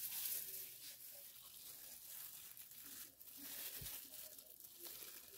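Water heating in a steel stockpot, faintly hissing and crackling as it nears a simmer, with a soft low thump a little before four seconds in as balls of meat paste go into the water.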